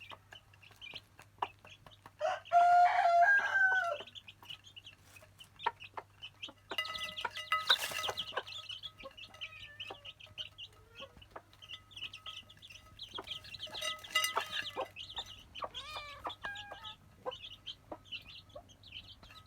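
Farmyard chickens clucking, with one loud rooster crow about two seconds in.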